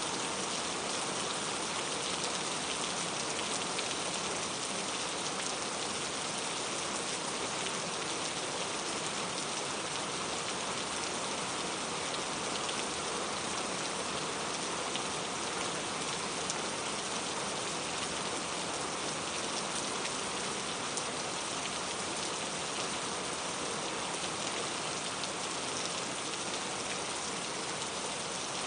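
Steady rain falling, an even hiss with scattered small drop ticks, no let-up.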